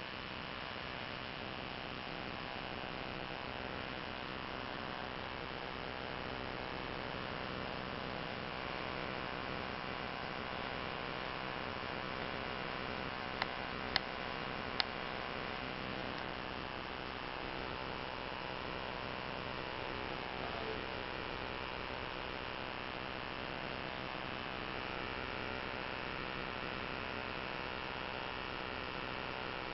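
A large grasshopper-like insect making a steady, shrieking, electricity-like buzz that sounds like a cicada. Three short clicks come about halfway through.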